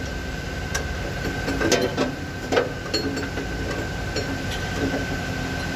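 Steady background machinery hum with a few scattered light metallic clicks and knocks from hand tools on an engine that is being turned over by hand.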